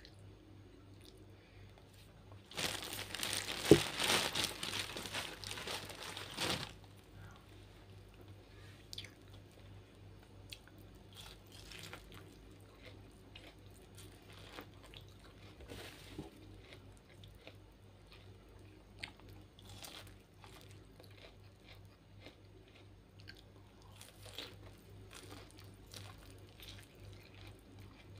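Biting and chewing boiled corn on the cob: small crunches and clicks of kernels scattered throughout. A loud rustling, crinkling burst lasts about four seconds near the start.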